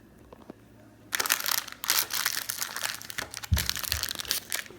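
Plastic popsicle wrapper crinkling as it is handled, starting about a second in, with a couple of dull bumps near the end.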